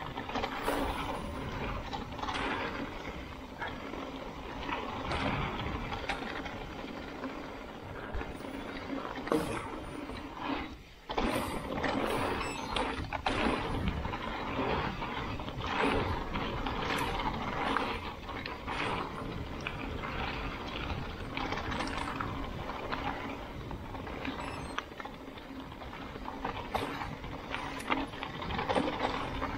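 Mountain bike descending a rocky trail: tyres crunching over ground and rocks, with the frame and chain rattling and clicking throughout. About eleven seconds in there is a brief lull that ends with a sudden return of the rattling.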